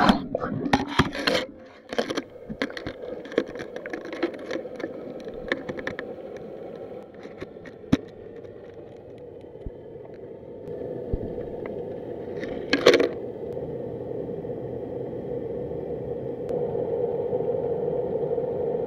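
Clicks, rattles and scrapes of fishing gear being handled, dense at first and then thinning out into a steady low hum. A brief loud clatter comes about two-thirds of the way through.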